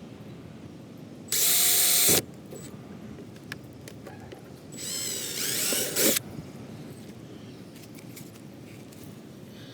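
Power drill run in two short bursts, about a second each, the second rising in pitch.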